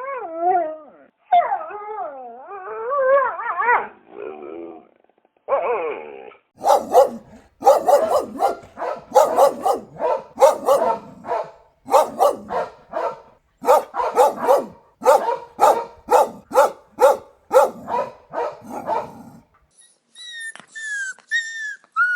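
Mixed-breed dog howling and whining in wavering calls for about five seconds, then barking in a long run of short, sharp barks, about two a second. The barking stops and gives way to a high-pitched whimper near the end.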